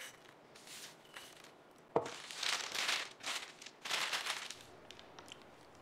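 Parchment paper crinkling and rustling as it is gathered and folded up with dried mealworms on it. There is a single sharp knock about two seconds in.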